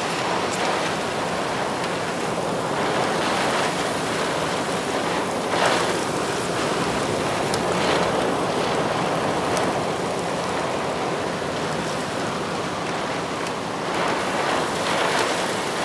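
Strong, steady rushing wind of the rear inflow jet blowing around a large tornado, swelling in gusts now and then.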